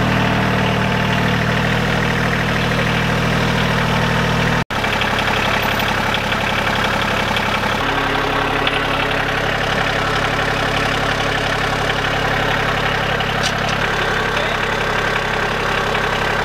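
Tractor engine idling steadily. It cuts out for an instant just under five seconds in, then runs on a little lower in pitch.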